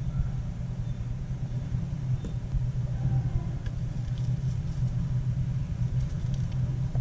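Steady low machine-like hum, with a few faint clicks around the middle and later on.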